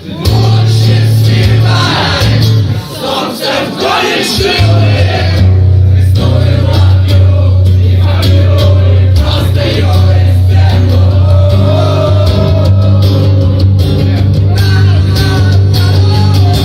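Live acoustic rock song: a man singing over acoustic guitar, with a steady low drone underneath.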